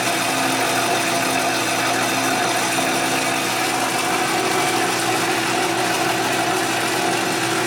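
Metal lathe running steadily, its tool taking a light finishing pass along a turned bar under carriage feed: an even machine drone with a few steady tones.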